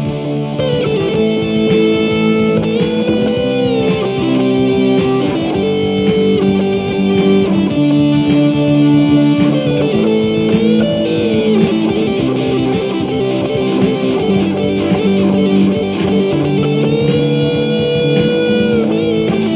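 Background music led by electric guitar, with held notes that bend up and down over a steady beat.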